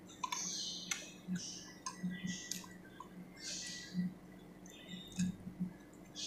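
Someone eating grilled fish by hand close to the microphone: wet chewing and lip-smacking with small mouth clicks, coming in short irregular bursts about once or twice a second.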